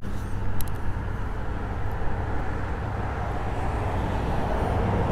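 Steady low rumble of road traffic, with a faint click about half a second in.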